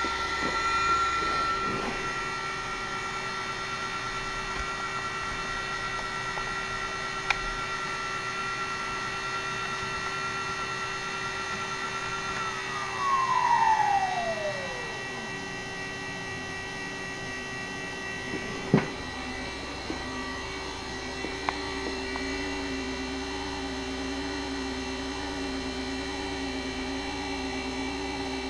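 Huanyang water-cooled CNC spindle running with a steady high whine, then slowing down about halfway through, the whine gliding down in pitch as the speed is cut to 1000 RPM. A steady lower hum runs beneath it, and a sharp click sounds about two-thirds of the way through.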